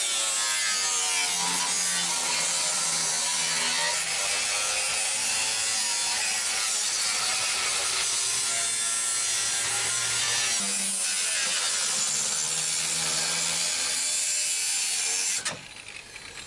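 Angle grinder with a cut-off disc cutting through the sheet-steel body of a VAZ-2101, a steady grinding hiss with the motor's whine wavering up and down as the disc bites. The cutting stops about a second before the end.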